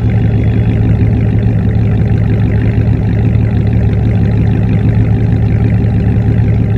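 V8 engine idling steadily through an aftermarket sport exhaust, a loud even burble with no revs.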